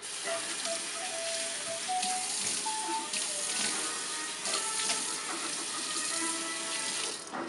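Water from a lever tap running into a stainless steel sink, with surges of splashing as cupped hands scoop it up to wash the face. Background music plays along.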